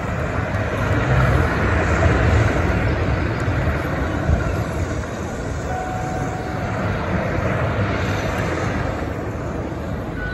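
Large concert crowd making a steady wash of noise that swells about a second in. A faint held note enters about six seconds in.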